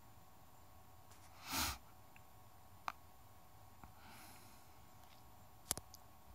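A person's short, sharp breath through the nose, a sniff, about a second and a half in, with a softer breath around four seconds, over a faint steady hiss. A few faint sharp clicks come just before the three-second mark and near the end.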